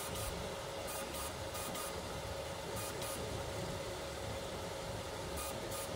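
FLSun Super Racer delta FDM 3D printer running a print: a steady whir with a constant mid-pitched tone over a low hum, broken by short hissy bursts now and then.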